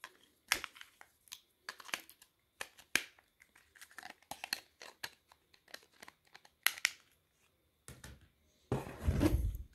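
Small plastic clicks and taps as a flip phone's lithium-ion battery is pressed back into its compartment and the plastic battery cover is fitted on. Near the end comes a longer, louder scraping rustle as the phone is handled among other phones.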